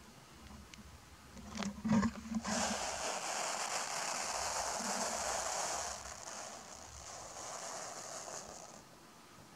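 A snake hissing in warning: one long hiss that starts about two and a half seconds in, loudest for its first few seconds, then carries on softer until it stops near the end. A few short knocks come just before it.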